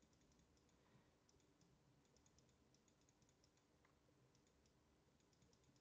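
Near silence: room tone with faint, scattered ticks of a stylus tapping on a drawing tablet as it writes.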